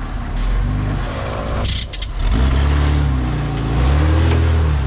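Four-wheel drive's engine revving under load as it is driven over rocks, its pitch rising and falling in surges. A short hiss with a few sharp knocks comes just under two seconds in.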